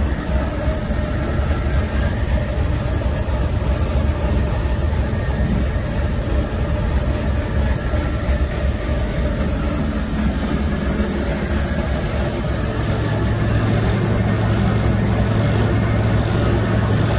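Steady low hum and fan noise of running electrical machinery: the generator set under full load and the window air conditioner it powers. A deeper steady hum grows louder about twelve seconds in.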